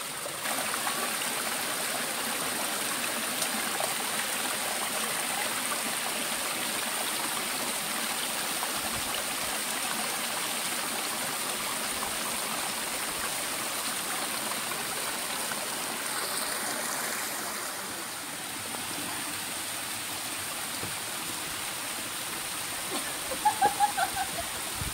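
Mountain stream running over granite boulders: a steady rushing of water.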